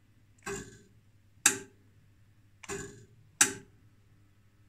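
Danbridge JP2 high-voltage insulation tester clicking with its high-voltage output switched on: four short, sharp clicks in two pairs.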